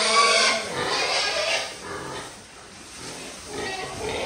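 Pigs squealing while crowding at feed: two loud squeals in the first second and a half, then quieter calls near the end.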